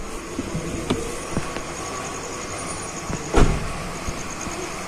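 A car door being opened and shut, the shut a single heavy thump about three and a half seconds in, with a few small clicks before it, over a steady low hum.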